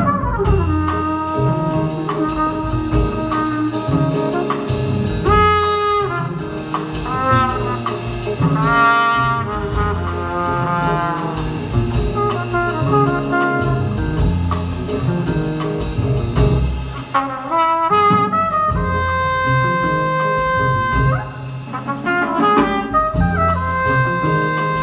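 Jazz big band playing live: saxophones, trombones and trumpets over upright bass, piano and drum kit. Bending, sliding lines in the middle give way to long held brass chords near the end.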